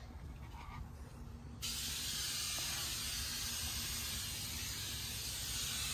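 Handheld spray nozzle hissing steadily as it sprays onto car carpet, switching on suddenly about one and a half seconds in.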